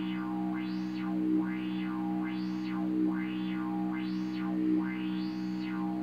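Electronic drone from hardware synthesizers: a steady low sustained note with a resonant filter sweeping up and down in a regular wobble, a little more than once a second.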